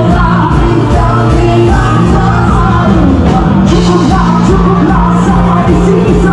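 Loud live rock band playing, with a singer's voice carrying the melody over bass and drums.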